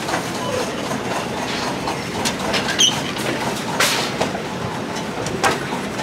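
Escalator and shopping-cart conveyor running with a steady mechanical rumble, a shopping cart riding on it and rattling, with a few sharp clacks, the loudest about four seconds in.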